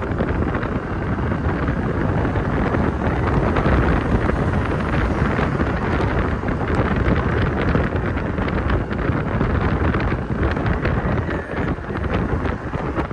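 Wind buffeting the microphone on a Yamaha NMAX scooter moving at about 40 km/h, with the scooter's running and road noise underneath as a steady rushing noise.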